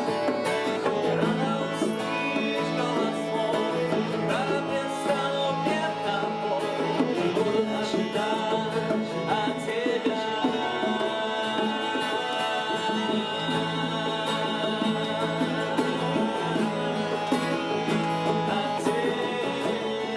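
Music from a worship song, with guitar and sustained chords and no clear words.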